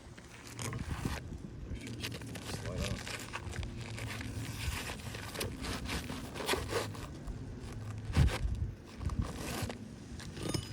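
Irregular crinkling and scraping on an asphalt shingle roof, as shingles are lifted and handled during an inspection.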